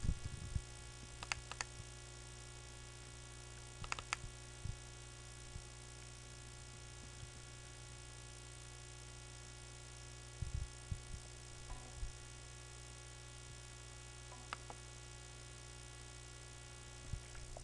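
Steady electrical mains hum with a stack of overtones, and a few faint scattered clicks.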